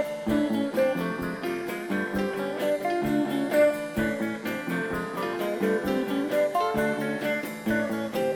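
Background music: a plucked guitar tune with a steady rhythm.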